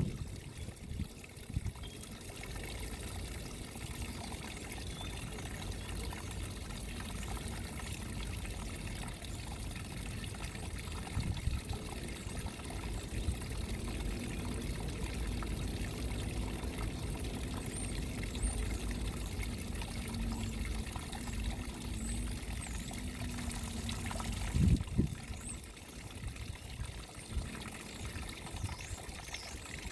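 Small waterfall splashing steadily over rocks into a shallow pond, a continuous trickling pour. A brief low thump stands out about 25 seconds in.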